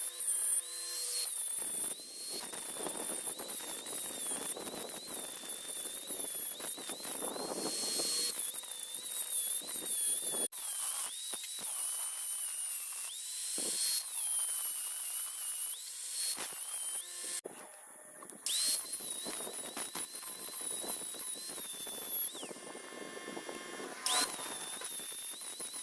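A high-speed power tool grinding on welded steel gear teeth. Its high whine sags each time the tool bites into the metal and climbs back when it comes off. The tool stops twice, once running down, and starts up again.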